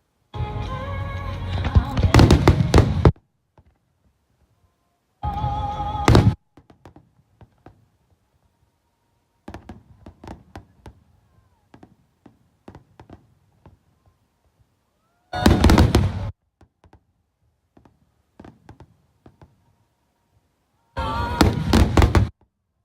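Fireworks shells bursting in quick succession over music played through loudspeakers. The sound comes in short loud stretches, each broken off abruptly into complete silence, four or five times.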